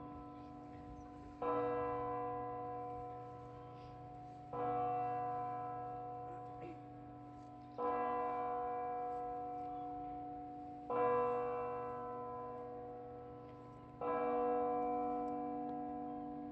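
A single large church bell tolling slowly, five strikes about three seconds apart, each ringing on and fading before the next: a memorial toll.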